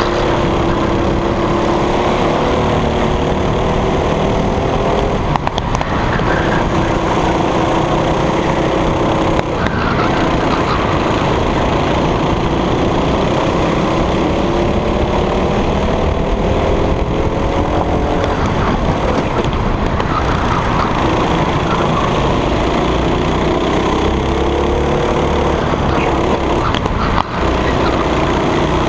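Racing kart engine heard onboard at full race pace: its note climbs steadily as the kart accelerates, then drops sharply as the driver lifts off, four times, over a constant rushing noise.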